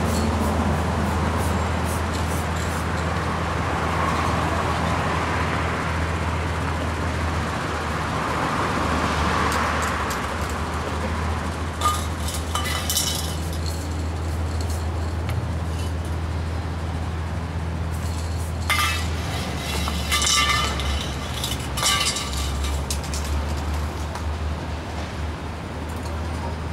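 Aerosol spray paint cans hissing in short bursts of about a second each, several times in the second half, with a sharp metallic clink just before the first burst. Under it runs a steady low rumble of street traffic.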